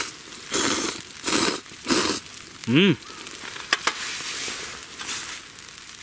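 A person slurping instant cup ramen, noodles and broth, in three loud slurps in the first two seconds. A couple of sharp clicks follow a little later.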